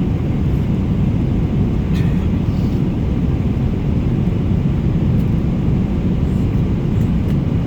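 Steady low rumble of a vehicle under way, engine noise and wind on the microphone, with no break or change.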